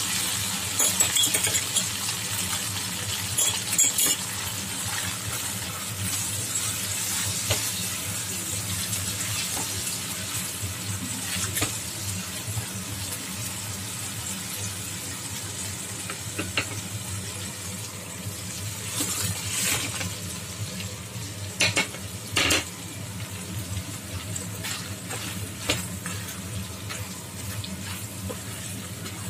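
Sweet-and-sour sauce sizzling and bubbling in a non-stick wok while a silicone spatula stirs and scrapes against the pan, with small clicks throughout. A few louder clatters come around twenty seconds in, and near the end battered fried chicken pieces are being tossed in the sauce.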